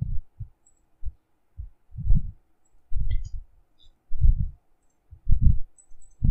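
Low, muffled thumps on the microphone, irregular and about one a second, with a few faint clicks between them.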